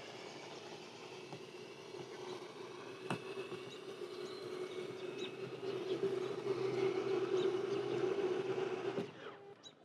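RV slide-out motor running steadily as the slide room retracts, growing louder, then stopping abruptly about nine seconds in as the slide comes fully in.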